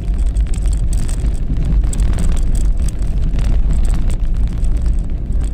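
An off-road SUV driving: a steady low rumble of engine and tyres, mixed with wind buffeting the microphone.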